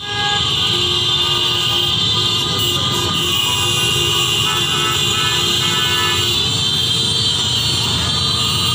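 Several car horns tooting and holding on and off over the steady noise of slow, dense city traffic with cars and motorcycles.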